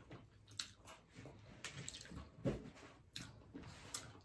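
Close-miked eating: soft wet chewing, lip smacks and clicky mouth sounds, with shrimp being peeled by hand. One louder, duller thump comes a little past halfway.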